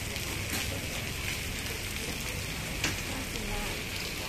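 Pork patties and chicken sizzling on a flat-top griddle, a steady hiss, with a sharp click a little before three seconds in.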